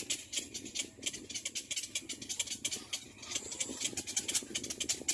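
Nestlings making a fast run of short, high-pitched begging calls, several a second, with no let-up.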